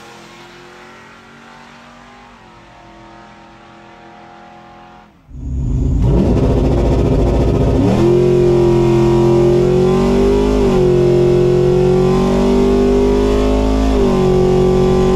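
Chevrolet Trailblazer SS's V8 accelerating hard down a drag strip, heard faintly from trackside at first, then loud from inside the cabin from about five seconds in. The engine note climbs under full throttle and drops briefly at each upshift, about three times.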